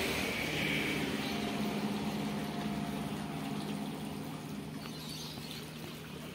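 A steady motor hum over outdoor background noise, with a faint higher whine in the first half.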